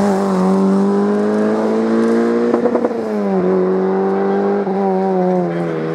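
Peugeot 106 rally car engine revving hard as it accelerates away, pitch climbing. It drops sharply at a gear change about three seconds in, with a short crackle, climbs again, and eases off near the end.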